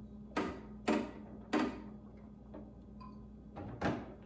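A few short clunks and knocks of kitchenware being handled: three in the first two seconds and another near the end. A low steady hum runs underneath.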